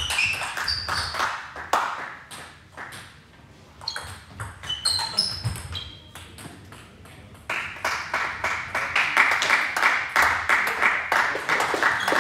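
Table tennis ball clicking and pinging off the table and rackets in rallies, with short high rings after some hits and a quieter gap between points. About halfway through, a steady hiss comes in under dense clicking.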